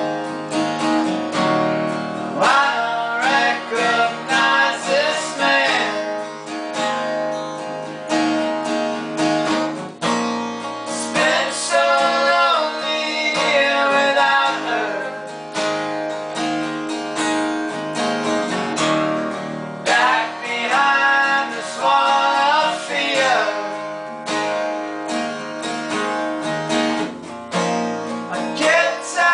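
Acoustic guitar strumming over an electric bass line in a country-rock song. A melody line sliding in pitch comes in three phrases over the accompaniment.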